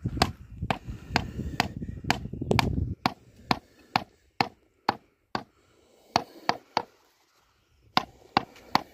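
A regular series of sharp knocks, about two a second, with a low rumble under the first three seconds; the knocking pauses for over a second near the end, then resumes.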